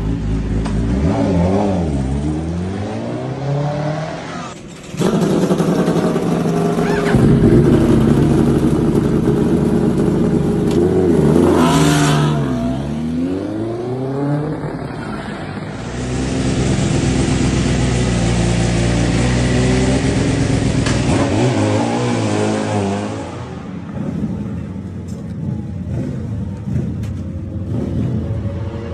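Racing superbike engines revving and pulling away, the pitch dropping and climbing back twice, with abrupt jumps in sound where clips change.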